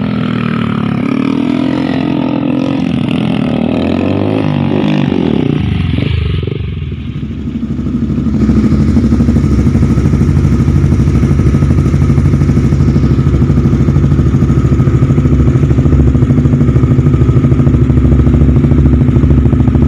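A motorcycle engine revving for the first six seconds, its pitch rising and falling. Then, about eight seconds in, a Honda CB150R's single-cylinder engine idles steadily at low revs through an aftermarket imitation Akrapovic muffler, a loud, deep, evenly pulsing exhaust note.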